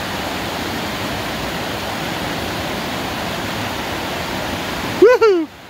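Poudre River rushing steadily, a full, even wash of water. About five seconds in, two short, loud, pitched yelps come in quick succession.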